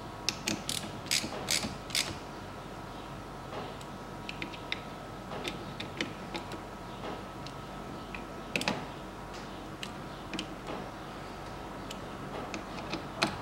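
Hand ratchet clicking while the screws of a diesel fuel filter housing lid are worked: a quick run of sharp clicks in the first two seconds, then scattered lighter clicks with a louder one past the middle.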